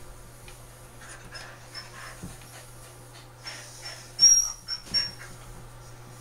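A frightened miniature Australian shepherd panting and giving thin, high-pitched whines, the loudest a couple of sharp cries between four and five seconds in. Under it runs the steady hum of electric pet clippers held against her coat.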